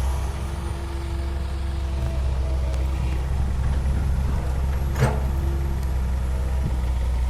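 Heavy diesel earthmoving machinery running steadily with a low drone, and one sharp metallic clank about five seconds in.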